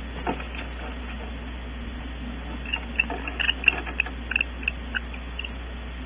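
Steady hiss and low hum of a webcam microphone, with a quick run of short sharp clicks and ticks about halfway through.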